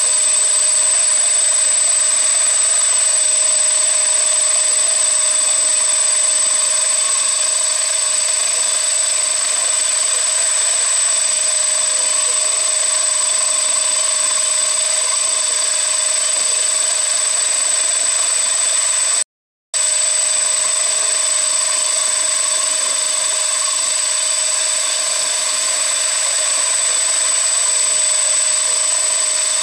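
CNC machine running steadily: a steady machining noise with a high, thin whine. The sound cuts out completely for about half a second roughly two-thirds of the way through, then resumes unchanged.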